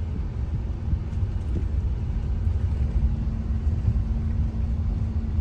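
Car driving, heard from inside the cabin: a steady low rumble of engine and tyres on the road, with a constant hum.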